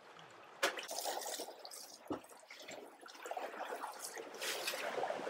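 Sea water sloshing and trickling around a boat's stern, with a sudden splash about half a second in as a fish carcass is thrown overboard.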